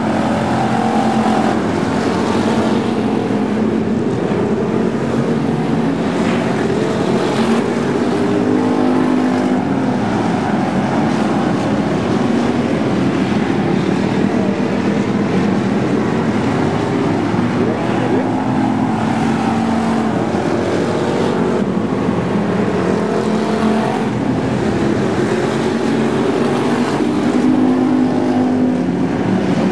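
Several factory stock race cars running flat out on a dirt oval, a steady pack of engine sound whose pitch rises and falls as the cars pass and lift for the turns.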